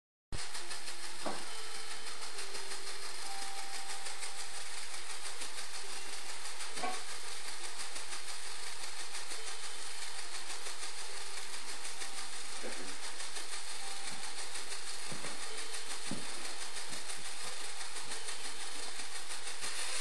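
Esky Co-Comanche coaxial electric RC helicopter in flight: its small electric motors and counter-rotating rotor blades whirring steadily at a high pitch.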